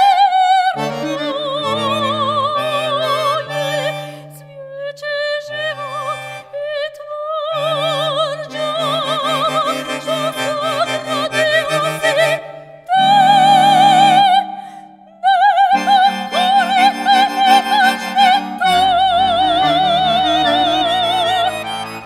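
Operatic soprano singing with a wide vibrato, accompanied by a button accordion playing sustained chords and a bass line. She holds a loud high note a little past the middle of the passage.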